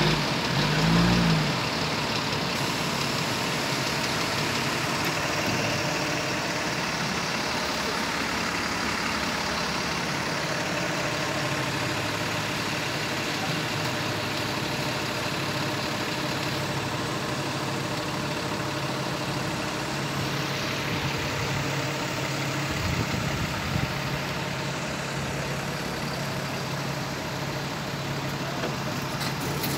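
A vehicle engine idling steadily. A few brief knocks come about three-quarters of the way through.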